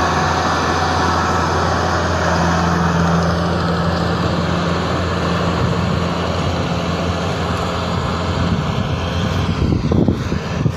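Corn-harvesting machine's engine running steadily with a low hum; its higher-pitched noise fades about four seconds in.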